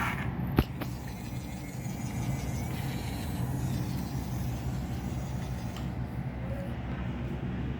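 Toy RC wheel excavator's small electric motors and plastic gearboxes running with a steady whirring hum, with one sharp click about half a second in.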